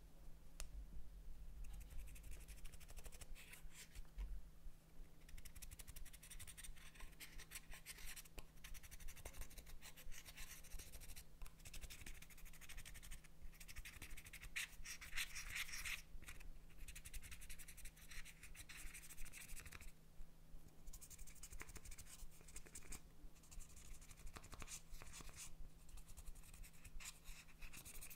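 Pressed eyeshadow being scraped and crushed in its palette pans with a small tool: dry, gritty scratching in bouts with short pauses. A faint steady hum sits underneath.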